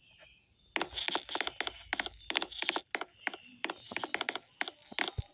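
A run of quick, irregular sharp clicks, about four or five a second, like keys being typed on a keyboard, starting about a second in.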